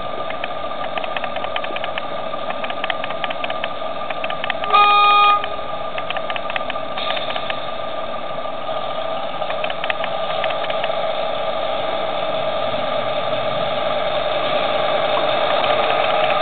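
Steady mechanical noise with faint clicking, growing slightly louder. About five seconds in, one short pitched beep lasts about half a second.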